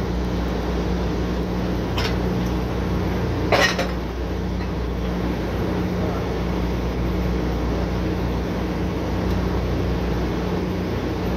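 Drilling rig machinery running with a steady drone, its pitch unchanging. Two sharp metal clanks on the rig floor, a lighter one about two seconds in and a louder, ringing one about a second and a half later.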